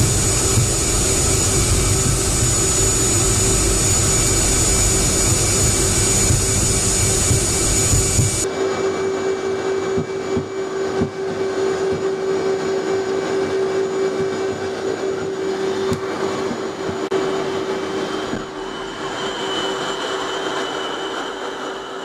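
Twin General Electric F404 jet engines of an F/A-18 Hornet running at taxi power, heard from inside the cockpit as a steady hum with a loud hiss. About eight seconds in the sound drops abruptly to a duller, quieter drone, and a high whine comes in near the end.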